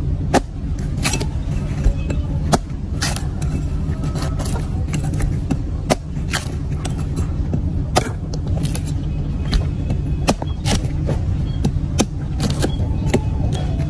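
Meat cleaver chopping into a husked young coconut, sharp chops at an uneven pace of roughly one a second, over a steady low hum.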